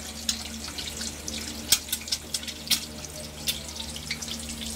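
An egg frying in hot oil in a pan: a steady sizzle broken by irregular sharp crackling pops.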